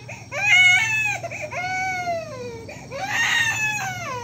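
A baby crying in three long wails, each sagging in pitch at its end.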